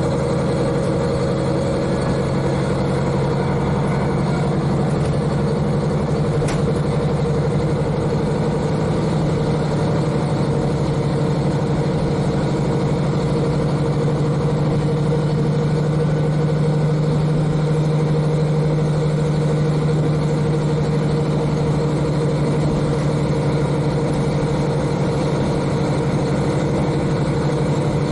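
Diesel railcar's N-DMF13HZI engine running steadily under way, heard from inside the cabin directly above the engine, with a deep, even hum that swells slightly midway, over the train's running noise.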